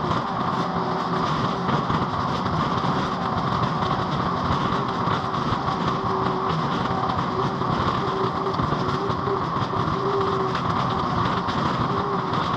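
Mini skid steer engine running steadily at working speed.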